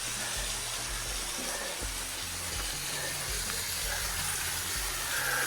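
Small waterfall splashing and rushing with a steady, even noise.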